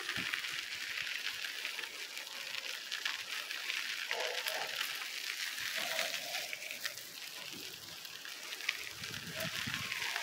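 Bicycle tyres rolling over a dirt road, a steady crackling hiss with small ticks of grit, and wind on the phone's microphone adding a low rumble near the end.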